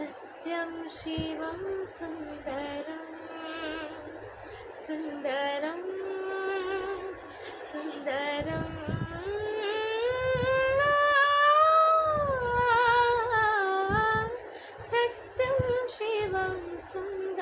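A woman singing unaccompanied, a slow melody with long held notes; the longest, about ten seconds in, swells and bends up in pitch, then falls away.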